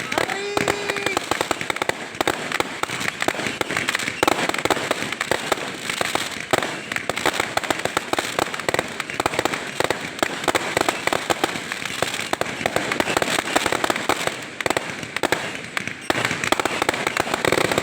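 Fireworks and firecrackers going off in a dense, continuous run of rapid pops and crackles.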